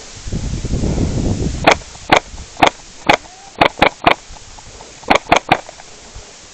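A short rustle of movement, then about ten sharp airsoft gun shots fired in uneven groups, some in quick pairs and triples.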